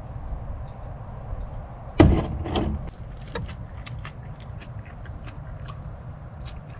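Wind rumbling on the microphone, with a sudden loud sound about two seconds in, then a string of small faint clicks.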